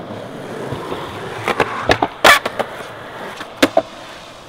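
Skateboard wheels rolling on concrete, then several sharp clacks of the board against the ground, the loudest about two seconds in, with two more quick clacks near the end.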